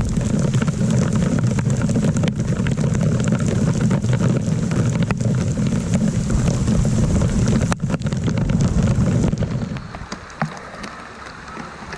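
Rain mixed with hail pelting the kayak and the water, a dense patter of small hits over a steady low rumble. About ten seconds in, the rumble drops away and the patter goes on more quietly.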